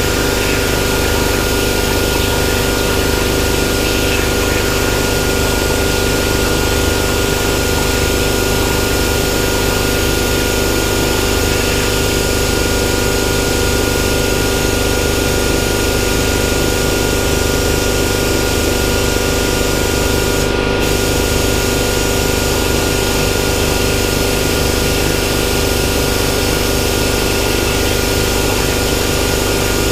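Hypertherm Powermax65 plasma cutter on a CNC table cutting sheet steel: a steady hiss from the arc and air with a constant hum underneath. The hiss drops out for a moment about two-thirds of the way through.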